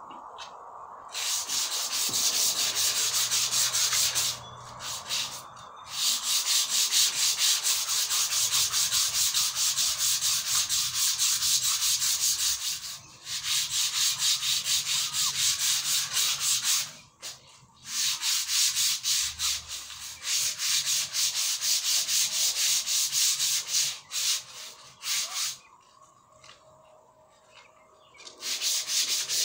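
Sandpaper rubbed by hand over a white-coated wooden board in quick back-and-forth strokes, about four a second. The strokes stop for several short pauses and one longer one near the end.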